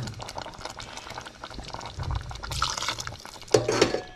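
Wooden spoon stirring a watery pea and potato stew in an aluminium pot: wet sloshing and small clicks, with a louder stroke of the spoon near the end.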